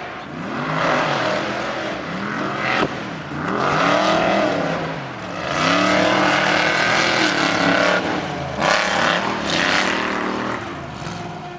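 Off-road racing cars' engines revving hard, their pitch climbing and dropping again and again as they accelerate and ease off. There is a single sharp knock a little under three seconds in.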